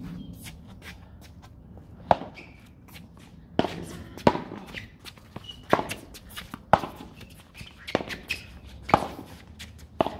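Solid paddles hitting a plastic ball back and forth in a doubles rally: about eight sharp pops, roughly one a second, starting about two seconds in, with faint shoe scuffs on the court between them.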